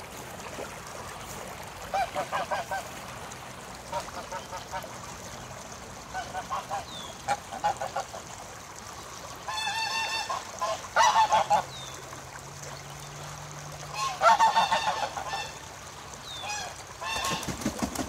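Domestic Pilgrim geese honking in repeated bouts of quick calls every few seconds, the loudest bouts a little past the middle. These are contact calls between a gander and the mate who is crying out for him from a distance.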